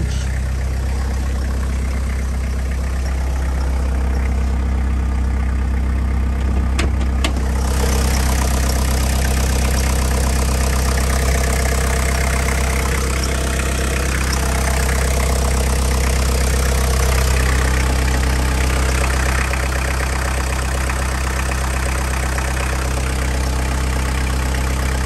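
Toyota 2C-T 2.0-litre four-cylinder turbo-diesel idling steadily with a diesel clatter. Two short clicks come about seven seconds in, and after that the engine sounds brighter and closer.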